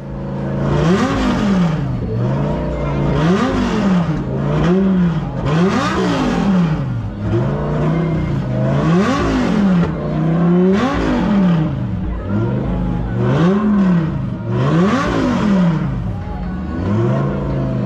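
A car engine idling and being revved repeatedly at a standstill: about nine quick throttle blips, each rising and falling back to a steady idle.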